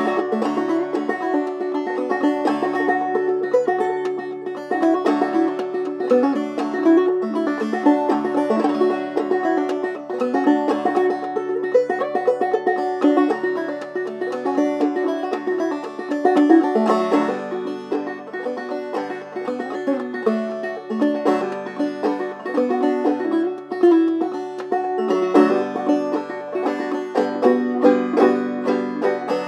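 Solo clawhammer banjo on a Kevin Enoch Dobson banjo in open D tuning (f#DF#AD), playing an old-time jam tune as a steady, unbroken run of picked notes.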